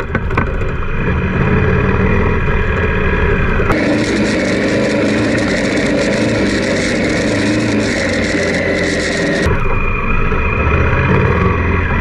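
Honda Africa Twin motorcycle's parallel-twin engine running under way on a dirt track, mixed with wind noise. The sound changes character abruptly twice, once about four seconds in and again near the end.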